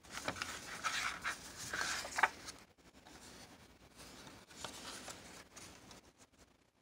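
Paper index cards being handled and swapped: rustling and scraping with small clicks, loudest in the first two and a half seconds, with fainter handling again about four and a half seconds in.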